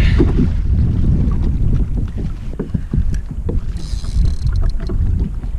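Wind buffeting the microphone in a steady low rumble, over water slapping and splashing against a kayak hull at sea, with many small knocks and a brief hiss about four seconds in.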